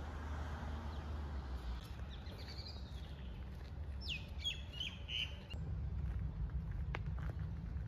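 Birds calling in the garden: a short run of sharp chirps with quick downward-sliding notes about halfway through, over a steady low rumble.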